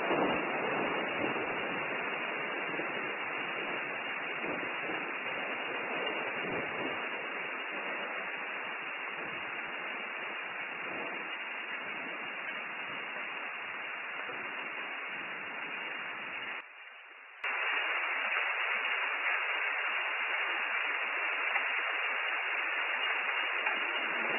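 Steady rain hiss picked up by an outdoor nest camera's microphone. It drops out for under a second about seventeen seconds in, then carries on.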